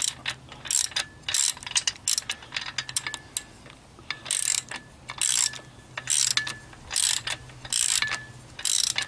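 Hand socket ratchet clicking in short runs, about one a second, as it is swung back and forth to loosen and back out a 5/8 nut on an outboard motor's lower unit.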